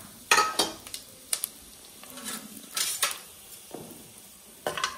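Several sharp clinks and clanks of a steel bowl and utensils knocking against an aluminium pressure cooker, the loudest about half a second in, over a faint sizzle of whole spices in hot oil and ghee.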